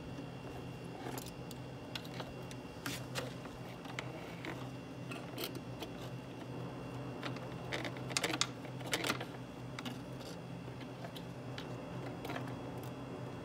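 A thin metal hand tool clicks and rattles against the outboard motor's lower cowling and fittings in scattered small taps, with a busier cluster about eight to nine seconds in. A steady low hum runs underneath.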